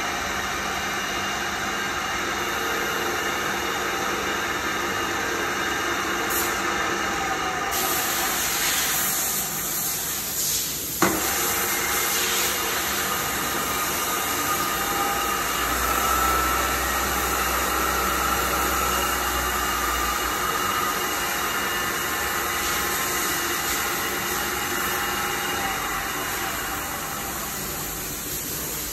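DPM CNC bed mill running, with a steady mechanical whir and hiss from the spindle and drive. A single sharp click comes about eleven seconds in, and a higher whine with a low rumble swells in the middle and then fades.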